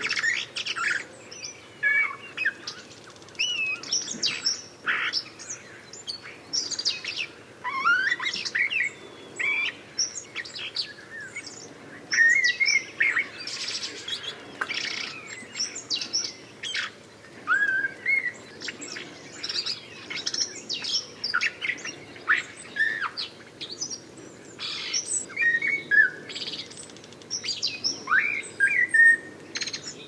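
Common blackbird singing: a steady run of whistled phrases, some rising in pitch, mixed with high twittering notes and only brief pauses.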